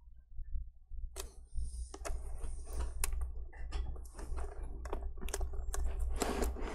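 Plastic screen bezel of a Dell XPS P28G laptop being peeled away from its adhesive tape: a dense run of crackling and sharp clicks with a tearing hiss, starting about a second in, over a low steady hum.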